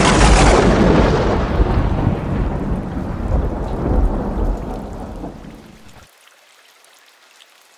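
A thunderclap that starts suddenly, rumbles deeply and fades away over about six seconds before cutting off. Light rain patters underneath.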